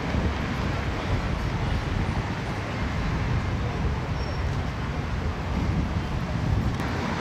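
Steady outdoor background noise, heaviest at the low end, with faint voices mixed in.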